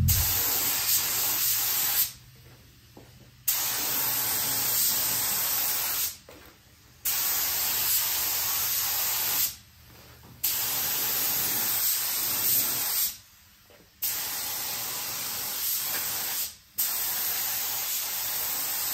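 Hissing spray in about six bursts of two to three seconds each, separated by short pauses of about a second.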